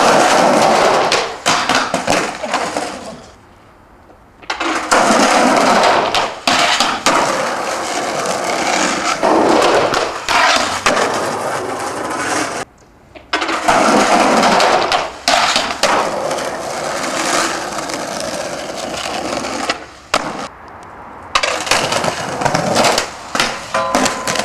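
Skateboard wheels rolling loudly over concrete paving and asphalt, with sharp clacks of the board popping and landing, in several runs broken by short gaps.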